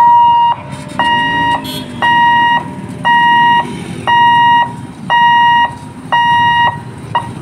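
Level crossing boom barrier's electric warning hooter beeping: a steady high tone of about half a second, repeated about once a second, seven times, with a short blip near the end.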